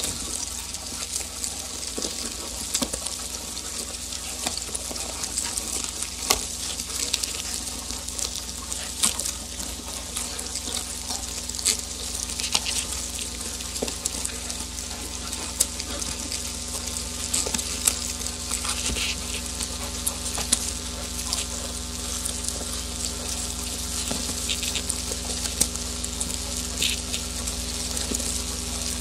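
Live electronic noise from a patch-cabled modular synthesizer: a dense crackling, sizzling hiss over a bed of steady low tones, with scattered sharp clicks. The lowest tone grows stronger near the end.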